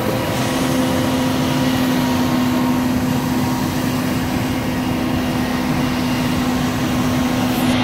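Boom crane truck's diesel engine and hydraulics running under load while hoisting a rooftop unit: a steady drone with a steady hum.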